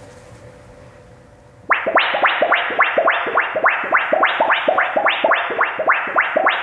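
Hand-made Foley sound effect: after faint room tone, a rapid even series of sharp, near-identical strokes starts suddenly about a second and a half in and repeats at about four a second.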